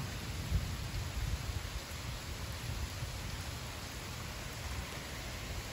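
Heavy rain pouring steadily in a severe storm, an even hiss with a low rumble underneath that rises and falls.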